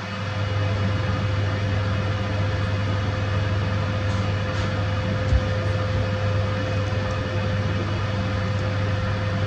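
Steady low electrical hum with a thin, faint whine above it, unchanging throughout, with one soft low knock about five seconds in.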